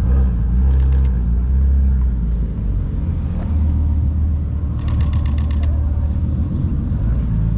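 A car engine running at idle, a low steady hum throughout. About five seconds in, a camera shutter fires a rapid burst of about eight clicks, from a Canon EOS R.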